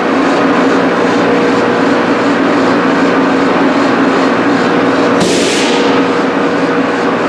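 Steady, loud air and fan noise of a powder-coating booth with a low hum, while a powder spray gun is in use. A short hiss cuts in about five seconds in.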